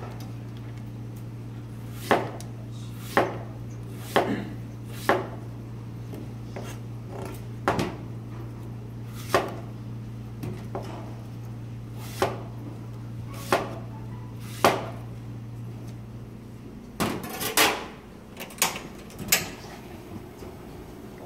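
Chef's knife slicing an apple into rings on a plastic cutting board: a sharp knock of the blade hitting the board every one to two seconds, over a steady low hum. Near the end the hum stops and a quick cluster of knocks and clatter follows.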